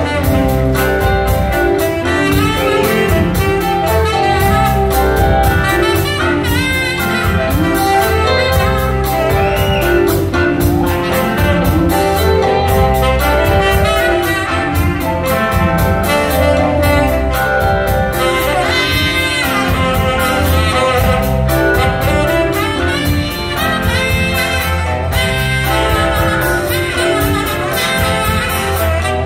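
Live rock band playing, with a saxophone carrying the lead line over electric guitars, bass and a steady drum beat.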